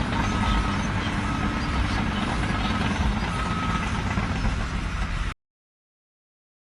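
Heavy engine running steadily, with a faint short beep repeating about once a second. The sound cuts off abruptly about five seconds in.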